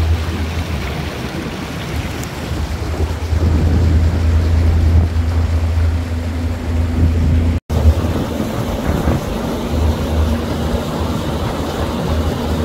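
Pontoon boat under way: its motor running steadily, with wind on the microphone and water rushing past the hull. The sound cuts out for an instant about two-thirds of the way through.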